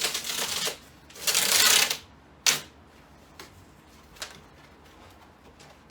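A cardboard flat-pack box being pulled open: two noisy rustling, ripping bursts in the first two seconds, a sharp snap about halfway through, then a few light taps.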